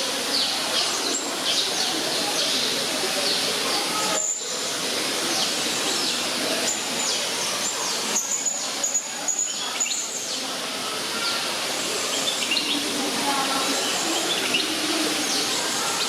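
Steady rush of a waterfall with many small birds chirping over it, short quick high chirps scattered throughout.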